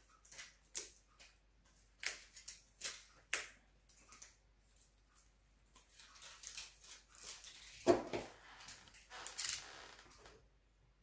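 Small packaging being handled and opened by hand: scattered sharp clicks and taps of plastic, brief stretches of crinkling, and one louder dull knock about eight seconds in.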